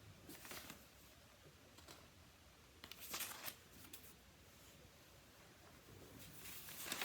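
Near silence in a small room, with three faint, brief rustles of something being handled, about a second in, about three seconds in, and at the end.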